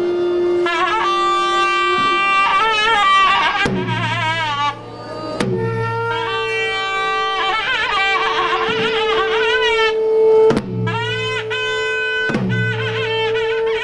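Theyyam ritual music: a double-reed kuzhal pipe plays a wavering, ornamented melody over a held drone note, and heavy chenda drum strokes fall every couple of seconds.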